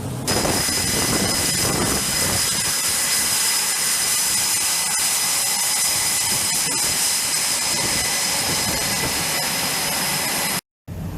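Jet aircraft engine running steadily with a high, multi-toned whine over a rushing noise. It starts abruptly just after the beginning and cuts off suddenly near the end.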